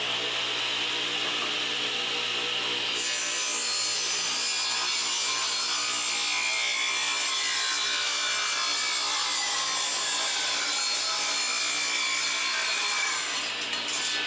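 Old Craftsman homeowner table saw running and ripping a wooden board fed through by hand. The cutting noise changes about three seconds in, and its whine falls slowly under the load before easing near the end.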